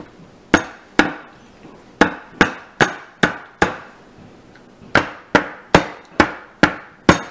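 Filled loaf soap molds in wire baskets knocked down on a tabletop in quick runs of sharp knocks, about two or three a second. There are two knocks, then five, then six, each with a brief ringing tail. This is typical of settling freshly poured soap batter and knocking out air bubbles.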